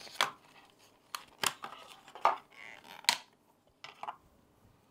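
Stiff clear plastic SSD packaging being pried open and handled: a series of short, sharp plastic snaps and clicks as an NVMe drive is worked out of its tray.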